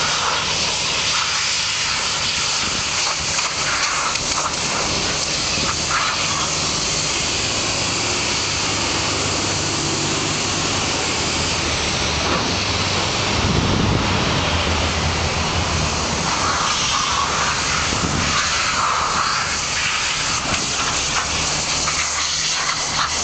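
Pressure washer spraying water onto asphalt: a loud, steady hiss over a low engine hum, with a louder rumble swelling up about halfway through.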